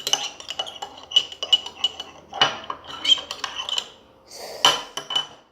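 A spoon stirring a slime mixture in a bowl, clinking and scraping against the sides in quick, irregular strokes with a faint ringing, stopping just before the end.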